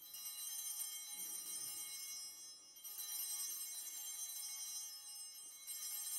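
Altar bells rung three times, about three seconds apart, each ring a cluster of high, lingering tones. They mark the elevation of the chalice at the consecration of the Mass.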